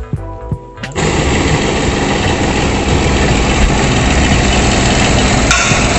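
Krisbow scroll saw switched on about a second in and running steadily, its motor driving the flexible-shaft mini grinder attachment used for freehand engraving.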